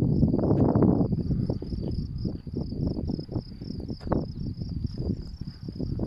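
Crickets chirping in a steady, pulsing high trill. Under it runs louder low rustling with scattered crunches and knocks, heaviest in the first second.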